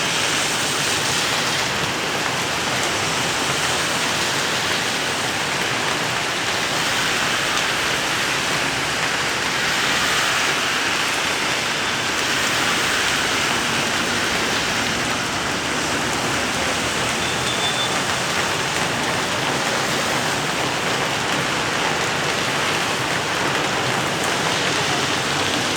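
Rain falling steadily, a dense even hiss of drops with no letup.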